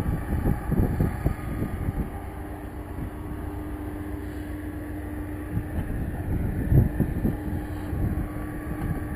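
Wind gusting on the microphone, heaviest at the start and again about two-thirds of the way through, over a steady low hum.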